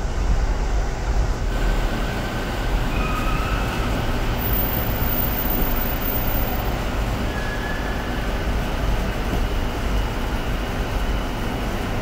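Fujiaire split air-conditioner outdoor unit running with its fan grille removed: the condenser fan spins openly, giving a steady drone with a deep hum underneath.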